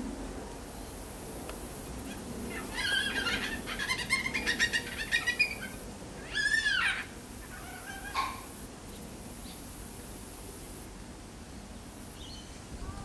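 Yellow-tailed black-cockatoo calling: a quick run of short calls, then one long wailing call that rises and falls, and a single short call after it.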